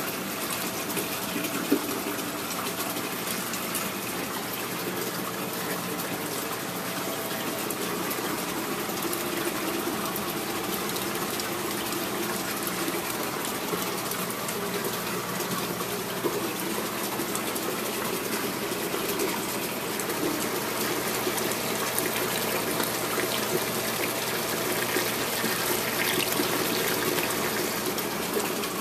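Steady gush and splash of circulating water in an aquarium's sump, with a faint steady low pump hum underneath.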